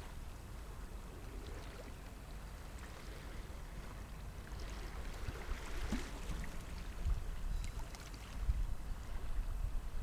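Small ripples lapping and splashing softly against shoreline rocks, under a low wind rumble on the microphone that gusts harder in the second half.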